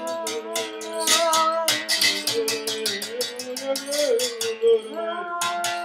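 Berimbau, a musical bow with a gourd resonator, struck in a quick steady rhythm of about four ticks a second, pausing briefly near the end. Under it runs a held, layered tone whose pitch wavers and glides.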